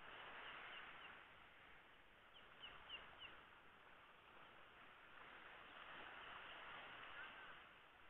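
Very faint hiss of small waves washing up a sandy beach, swelling and easing. Over it a bird gives short high chirps: a couple about half a second in, then four quick ones between two and a half and three and a half seconds in.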